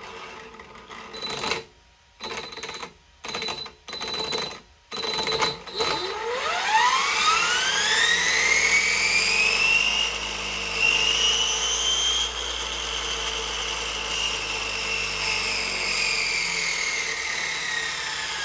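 Twin 2200kv brushless RC motors driving a Tesla turbine's aluminium disc runner through reduction gears. They first jerk in several short stuttering bursts, which is startup cogging, then spin up with a steadily rising whine, hold high for a couple of seconds and slowly wind down toward the end.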